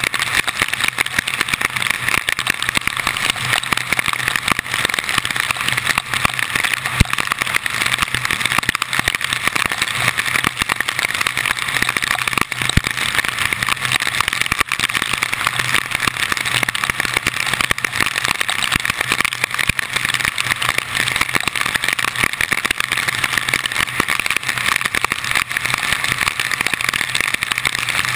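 Steady rush of wind, rain and wet-road noise at a hood-mounted GoPro as the car drives through heavy storm rain, with a fine crackle of drops striking the camera and a faint low hum underneath.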